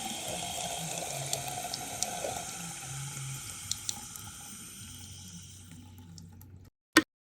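Water running, slowly fading until it stops, with a few faint ticks over it; a single sharp click follows near the end.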